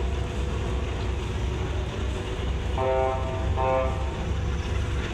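Two short horn blasts in quick succession about three seconds in, over a steady low rumble.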